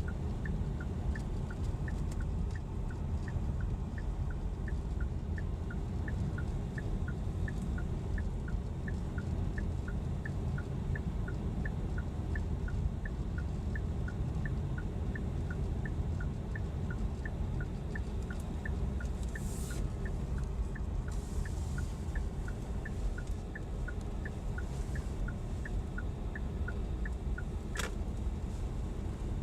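A car's dashboard flasher ticking in an even tick-tock, about two and a half clicks a second, over the steady low rumble of engine and tyres heard inside the cabin. A single sharp click comes near the end.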